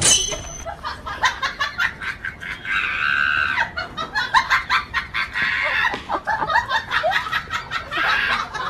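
Chickens clucking and squawking in a quick run of short, sharp calls.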